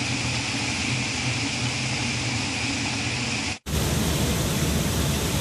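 Steady rushing noise with a low hum underneath, broken by a sudden brief dropout about three and a half seconds in.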